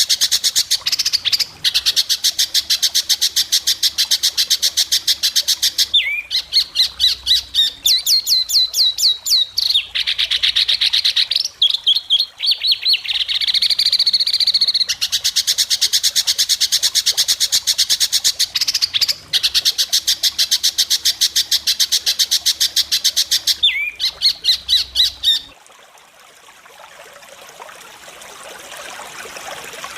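Songbird singing long bursts of very rapid, sharp, high repeated notes: a 'besetan' of the kind used as masteran to train white-rumped shamas. The bursts run several seconds each with short breaks, and the song stops about 25 seconds in.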